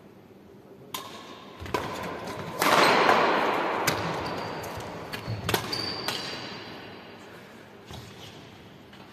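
A doubles badminton rally: rackets strike the shuttlecock in sharp smacks roughly every second, echoing in a large hall. A loud rush of noise starts about a third of the way in and fades over several seconds.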